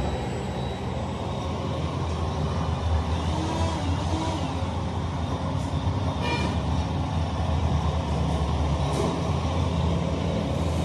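Heavy machinery running on a factory floor with a steady low hum and mechanical noise, with a couple of faint clanks.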